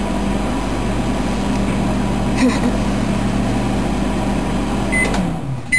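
Microwave oven running with a steady hum. About five seconds in, the hum winds down and stops, and it beeps.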